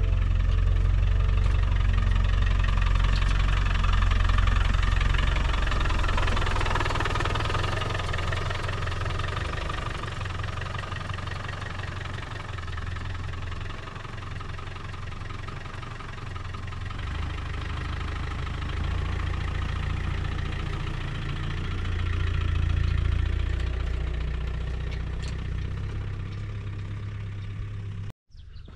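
Land Rover Defender TD5's diesel engine running under way, with steady road noise over a deep rumble that eases off in the middle and swells again later.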